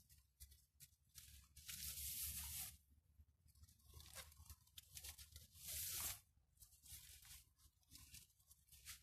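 Rustling and swishing of long Siberian iris leaves being gathered and twisted by hand for braiding, in several short bursts, the loudest about two seconds and six seconds in, over a faint low rumble.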